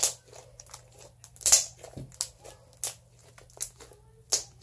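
Sky-blue slime squeezed and kneaded by hand, giving a string of sharp wet pops and crackles, the loudest about a second and a half in.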